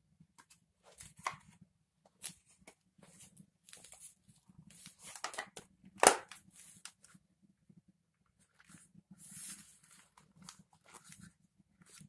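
Plastic housing of a small vacuum cleaner being handled and pressed back together: scattered clicks, scrapes and knocks, the loudest a sharp knock about six seconds in.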